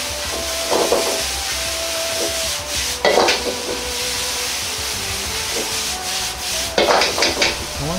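A utensil scraping and stirring minced beef and onions in an iron wok, in three louder bursts about a second in, at three seconds and near the end, over the steady hiss of frying and the gas burner.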